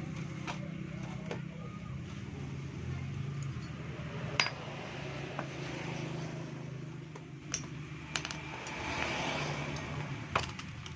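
Metal hand tools clinking a few times as they are picked up and set down, over a steady low background hum.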